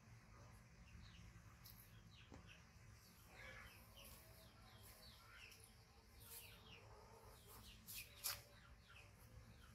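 Faint chirping of small birds in the background: a scattered run of short, high, quickly falling chirps over near silence. A single sharp tick about eight seconds in is the loudest sound.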